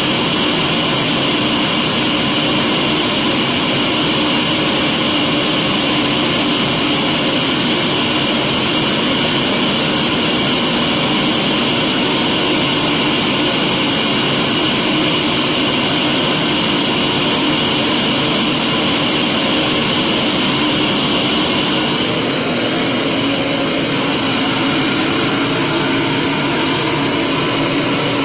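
Vacuum cleaner running steadily, a loud even whoosh whose tone shifts slightly about 22 seconds in.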